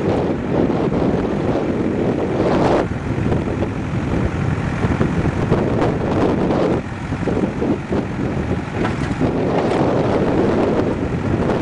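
JCB backhoe loader's diesel engine running under load as the hydraulic digger arm swings and lowers the bucket.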